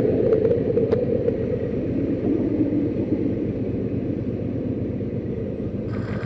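Motorcycle engine running steadily in slow city traffic.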